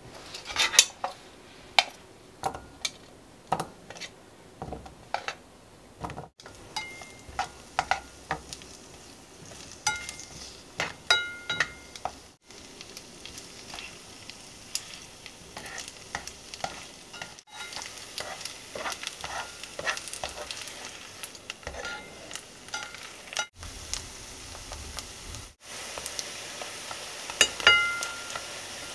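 Rice-cake sticks frying in melted butter in a ceramic-coated pan: a sizzle that builds up, with many sharp clicks and taps of tongs against the pan as the pieces are set down and turned, some taps leaving a brief ringing tone.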